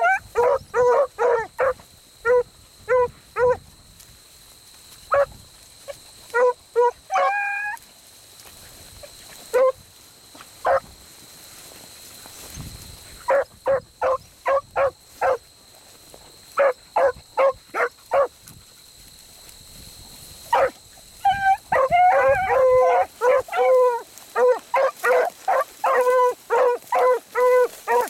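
Beagles baying while trailing a rabbit through field cover: runs of short barks broken by pauses, one longer rising bawl about seven seconds in, and near the end steady overlapping baying from more than one hound.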